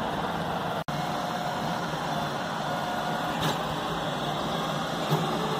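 DIY 3D printer running: a steady hum of fans, with faint short whines from the stepper motors as the print head moves. The sound drops out for an instant about a second in.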